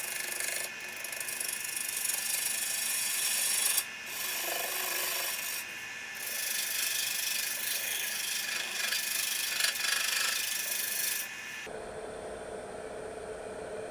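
A tool working the edge of a cottonwood platter spinning on a wood lathe: a scraping hiss with a few brief breaks. The scraping stops sharply near the end, leaving a lower steady hum.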